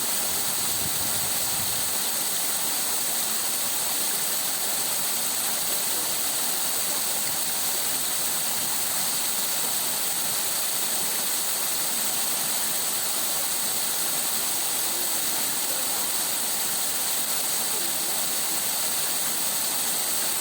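Water running over stones, a steady, unchanging flow.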